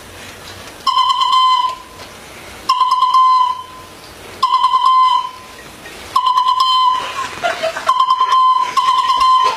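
Plastic toy trumpet blown on one high note: four separate toots of under a second each, spaced well apart, then quicker, choppier toots near the end.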